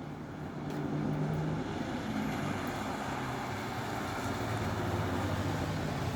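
A motor vehicle running: a steady low hum with a rushing noise over it, growing louder about a second in.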